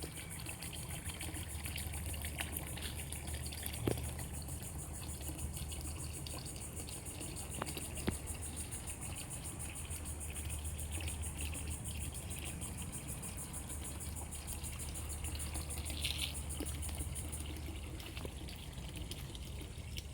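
Homemade garden fountain running: water trickling and splashing steadily, with a constant low hum underneath and a few faint ticks.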